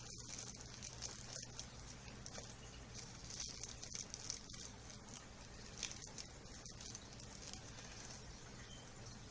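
Faint scattered taps and rustles of parts and packaging being handled while a soldering rework station is set up, over a steady low hum.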